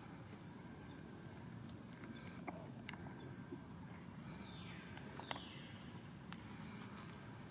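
Faint outdoor background rumble with a few sharp clicks, the loudest about five seconds in. A brief thin high call, first held steady and then falling in pitch, comes around the middle.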